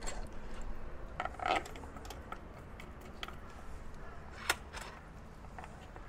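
Scattered light clicks and taps of bolts and small metal parts being handled and fitted into a plastic pump manifold block, with one sharper click about four and a half seconds in.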